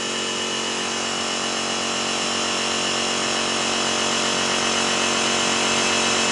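Workshop air compressor running steadily, a continuous mechanical drone with a thin high whine, slowly growing a little louder.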